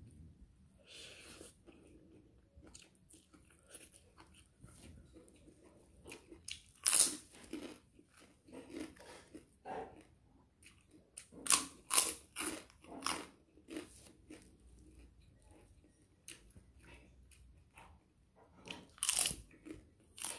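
Close-miked eating: soft chewing of noodles at first, then loud, crisp crunches from biting and chewing puffed crackers. The sharpest crunches come about seven seconds in, in a cluster around twelve seconds, and again near the end.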